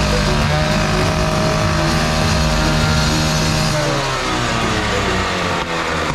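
Two-stroke petrol cut-off saw (disc cutter) running steadily at high revs, then the throttle is released a little under four seconds in and the engine speed falls away toward idle.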